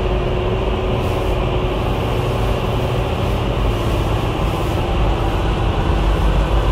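Racing motorcycle engine running, a steady loud drone with a held tone that sags slightly in pitch.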